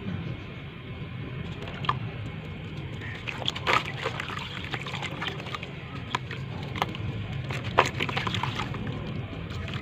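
Clumps of brown sand crumbling and crackling in water, with scattered sharp cracks, the loudest nearly eight seconds in.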